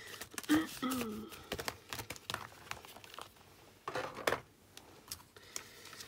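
Paper and clear plastic packaging rustling and crinkling as a die set's paper insert is slid back into its plastic sleeve, with a second short burst of paper handling about four seconds in.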